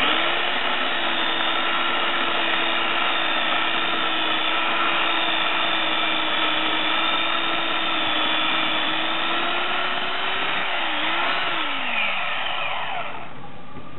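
Electric chainsaw motor running at a steady high speed for about ten seconds, then wavering and winding down in pitch as it is released, stopping shortly before the end.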